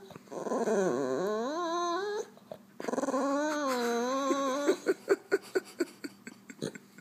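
French Bulldog whining and moaning in long, wavering, pitched calls that slide down and back up, followed by a quick run of about eight short, clipped noises.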